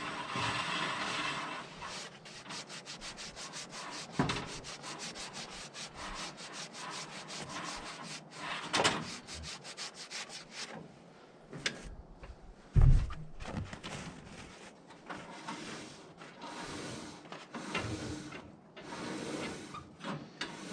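Sawdust buildup being brushed and scraped off a band sawmill by hand: several seconds of quick repeated strokes, then scattered knocks, a loud thud about halfway through, and more bursts of scraping near the end.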